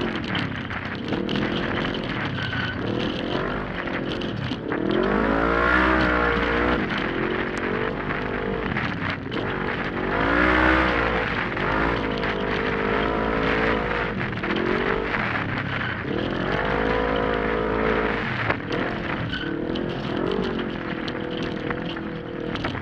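A 1000 cc side-by-side UTV engine racing flat out, revving up and backing off again and again through the turns, heard from the cockpit. Under it runs a steady rush of wind and brush, with occasional knocks from the rough trail.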